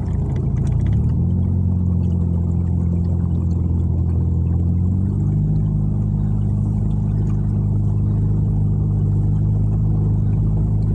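Car engine running steadily under light load while reversing into floodwater, its note stepping up about a second in and again about five seconds in.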